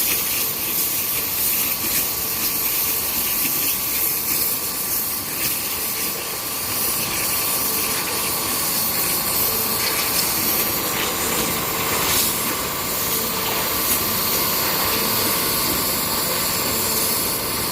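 CNC stone-cutting machine cutting granite, a steady hiss with a constant machine whine underneath and a few brief ticks.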